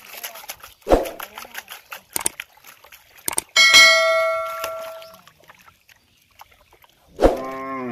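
A fish splashing and thrashing in a plastic tub of water. About three and a half seconds in comes a loud bell ding sound effect that rings out for over a second, and near the end a sharp thump followed by a short pitched sound.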